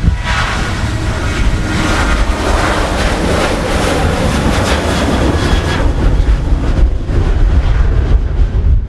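An airliner's engines roaring at high power as it passes, swelling for the first few seconds and then easing, under heavy gusting wind buffeting the microphone.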